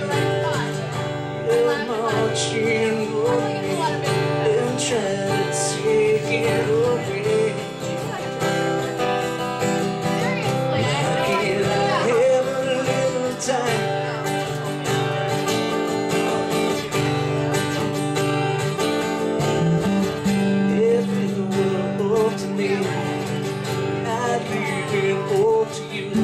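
Live band playing: strummed acoustic guitar over electric bass and a drum kit, with cymbal hits through the song.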